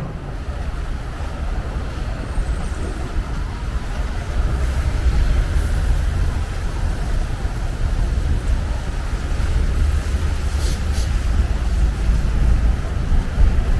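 City street traffic: cars passing with a steady low rumble that grows louder about a third of the way in.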